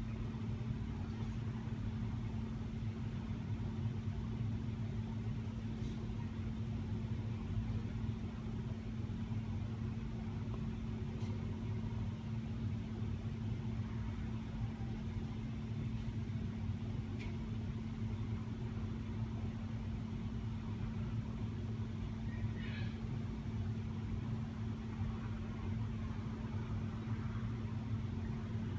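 A steady low hum, with a few faint ticks.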